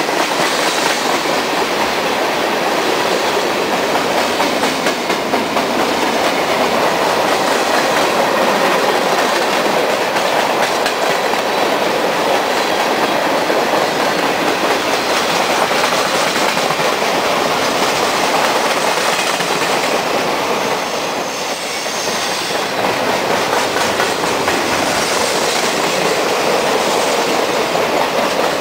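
Norfolk Southern mixed freight train of tank cars, gondolas and covered hoppers rolling past close by: the steady, loud noise of steel wheels running on rail, briefly quieter about three quarters of the way through.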